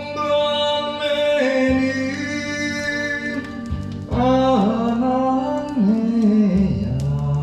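A Korean song playing: a singer holds long notes that bend and waver, over steady instrumental accompaniment.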